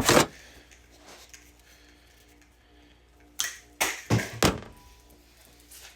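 Short knocks and clicks of wire and tools being handled on a work surface: one sharp one at the start, then a quick cluster of four about three and a half seconds in.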